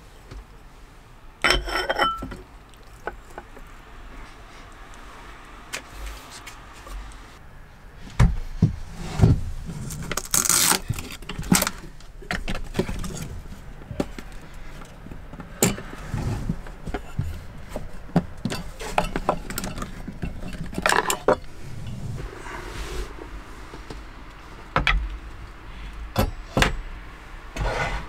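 Scattered clinks, knocks and rustles of handling: a ceramic bowl lifted and set down on a wooden table, and a compact gas camping stove and its fuel canister taken from a wooden shelf and set down, metal clicking against metal and wood.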